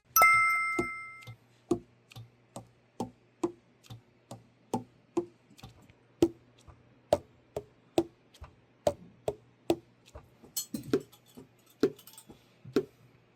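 A run of sharp, light metallic taps, about two a second, each ringing briefly, over a faint steady low hum; it opens with a short bell-like ding.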